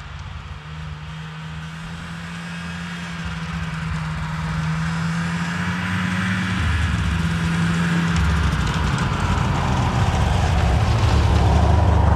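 Snowmobile engine running at a steady pitch, growing steadily louder as it comes closer.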